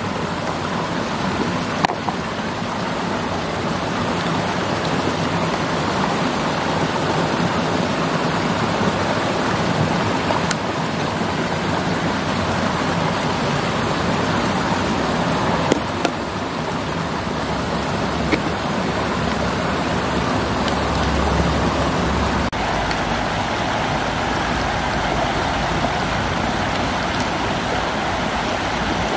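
Steady rush of stream water pouring over a small concrete weir, with a few faint clicks.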